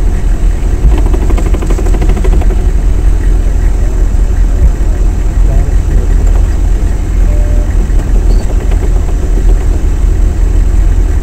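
Military vehicle's engine running steadily, a loud low rumble heard from inside the cab.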